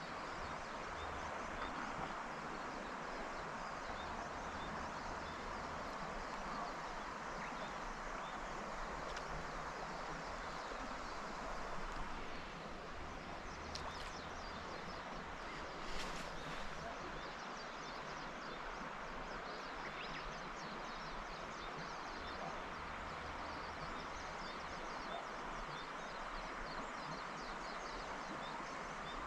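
Steady rush of flowing river water, with a couple of faint clicks a little past the middle.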